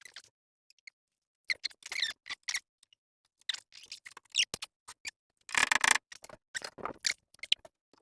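Closet door hardware clicking and knocking as the doors and their newly tightened latch are worked, with a louder rattling scrape of about half a second just before six seconds in.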